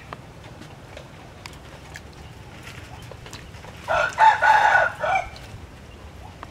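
A rooster crowing once, about four seconds in: a single loud call lasting over a second, over a low steady background.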